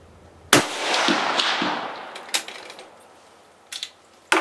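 A single shot from a sporterized K98 Mauser rifle in 8mm Mauser about half a second in, its report echoing and fading away over about two seconds. Near the end, sharp metallic clicks of the bolt being worked open.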